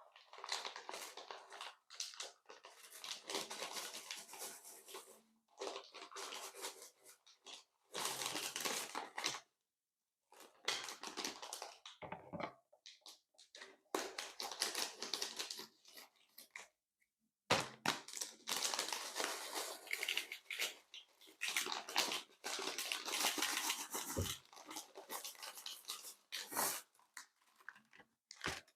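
Crinkly, crackling handling noises from slime-making materials and candy, coming in irregular bursts of one to several seconds with short silent gaps between.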